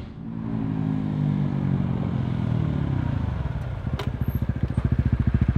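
Two 150 cc single-cylinder motorcycles, a Honda Winner X and a Yamaha Exciter 150, ride up and slow down, their engine note falling. They settle into idling with a rapid, even putter about three seconds in, and there is a sharp click about four seconds in.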